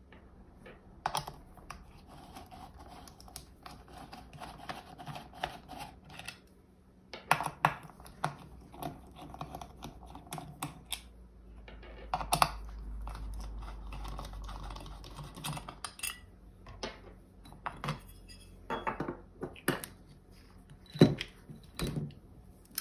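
Micro ratchet wrench clicking in quick runs as screws are backed out of an aluminium plate, mixed with small metallic clinks and taps as the screws and plate are handled. A sharp knock near the end is the loudest sound.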